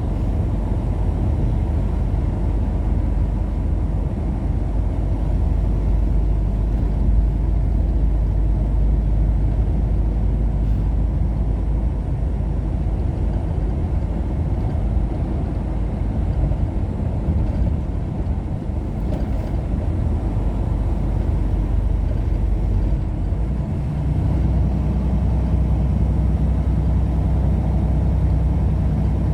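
Steady engine and road noise from a moving vehicle. About two-thirds of the way through, a low hum becomes steadier and slightly louder.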